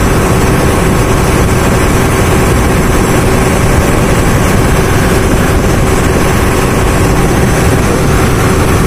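A ferry's engine running steadily with a constant hum, under the loud rushing of water churned along the hull.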